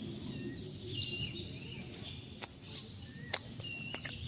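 Birds chirping: many short high chirps over a steady low background noise, with a few sharp clicks in the second half.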